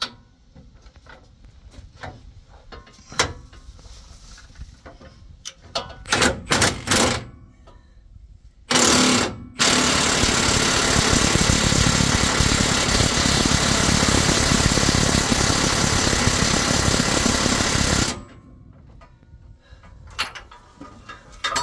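Impact wrench hammering on a truck's track bar bolt through a torque-limiting extension: a short burst about nine seconds in, then about eight seconds of continuous hammering that stops suddenly. Before it, scattered clicks and knocks of tools being fitted.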